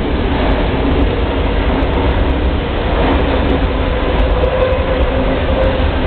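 Electric train running past on an overhead-wired line: a loud, steady rumble of wheels and running gear, with a faint motor whine that rises slowly in the second half.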